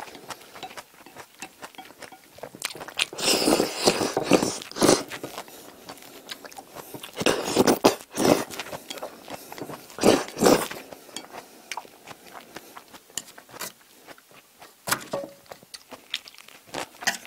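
Close-miked eating of tomato spaghetti with chopsticks: loud wet slurps of noodles about three, seven and ten seconds in, with chewing and small clicks of chopsticks against the plate between them.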